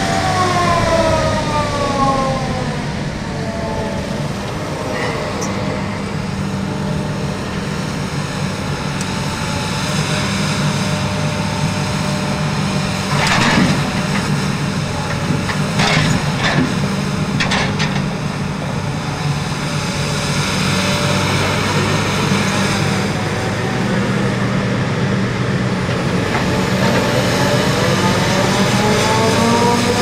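Sennebogen 735 E-Series timber handler running steadily, its drive whine falling away over the first few seconds and rising again near the end as it moves off. Around the middle come a few sharp knocks of logs dropped from the grapple onto a pile.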